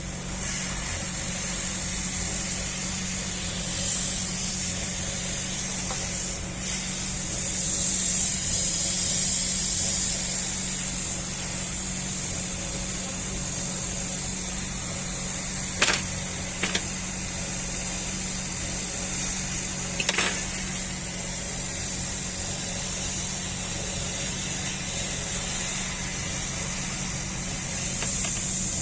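Hot air rework gun blowing steadily, a hiss over a low motor hum, as heat is applied to desolder a laptop hard drive connector. Three short sharp clicks come a little past the middle.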